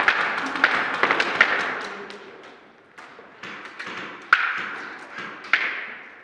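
Airsoft gunfire and BB impacts: a quick run of sharp taps in the first two seconds, then a few single, louder cracks spaced about a second apart.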